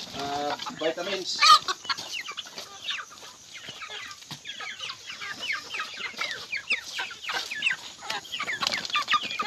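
A flock of chickens clucking and chirping, many short, quick calls overlapping, as they crowd eagerly around a feed bucket at feeding time.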